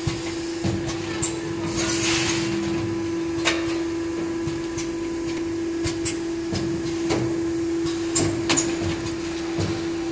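Given-bag doypack packing machine running: a steady hum with irregular sharp clicks and clacks from its pneumatic grippers and mechanism, and a short hiss of air about two seconds in.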